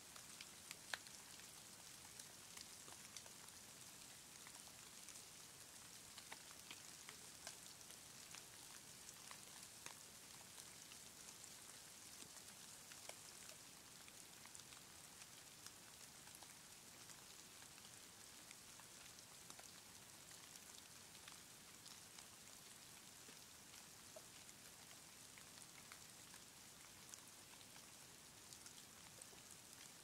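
Faint, steady hiss of falling snow, dotted with many light ticks of flakes and ice grains landing, and one sharper tick about a second in.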